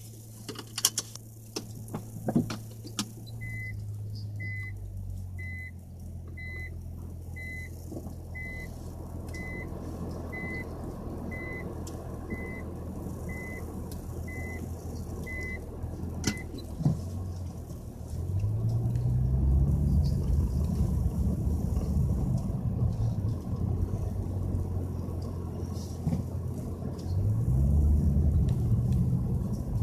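Nissan Fuga 350GT's 3.5-litre V6 with an aftermarket quad exhaust, heard from inside the cabin: it idles while an in-car warning beep sounds about once a second for some twelve seconds, then rises in pitch twice as the car pulls away and accelerates. A few clicks come in the first seconds.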